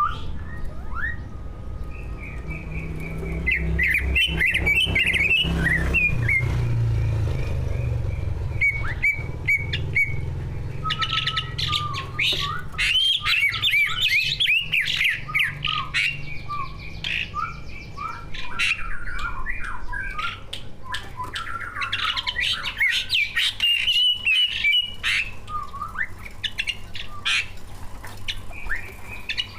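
Two green leafbirds (cucak ijo) singing, with rich, fast, varied warbling full of mimicked phrases. The song comes in loud bouts of a few seconds, with a quick run of repeated same-pitch notes between them. A steady low hum runs underneath.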